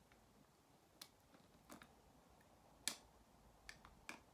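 Near silence broken by a few faint, sharp clicks and taps, the loudest about three seconds in: fingers handling a sealed tube of shower gel while trying to open it.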